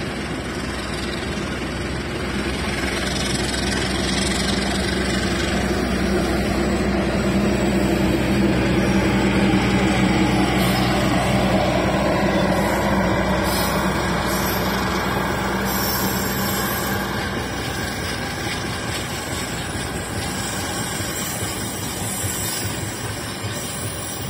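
Diesel locomotive of a passenger train running steadily as the train moves through the station. The engine grows louder to a peak about ten seconds in, then eases off.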